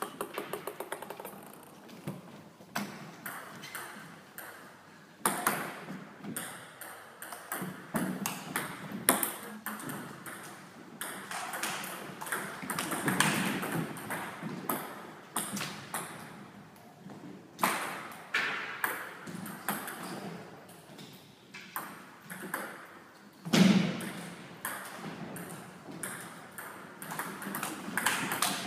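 Table tennis rallies: the celluloid ball clicks in quick, irregular runs off the table and the rubber-faced bats, with short pauses between points. About three quarters of the way in there is one louder thud.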